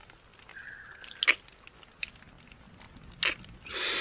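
Close-miked mouth sounds: three short, wet kissing smacks about a second apart, then a long breathy exhale starting near the end.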